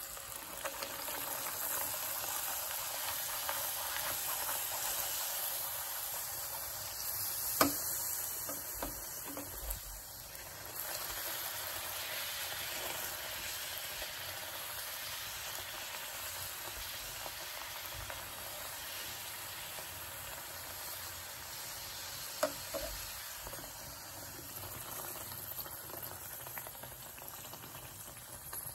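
Puri deep-frying in hot oil, a steady sizzle as the dough puffs, easing off slightly toward the end. Two sharp knocks stand out, one about eight seconds in and one about fifteen seconds later.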